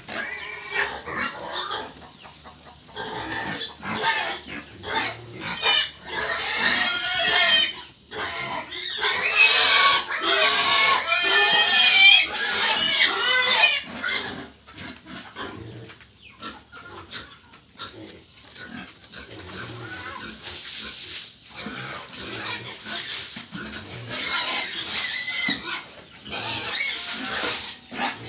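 Hungry pigs squealing, high and wavering, with the loudest run of squeals from about four to fourteen seconds in and quieter calls and shorter bursts after.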